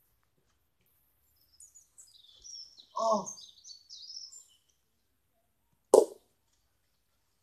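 A plastic cricket bat strikes a ball once, a single sharp crack about six seconds in. Birds chirp in the first half.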